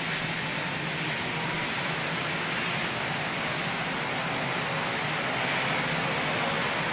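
Steady rushing engine noise, like a running jet aircraft, with a faint high-pitched whine held throughout.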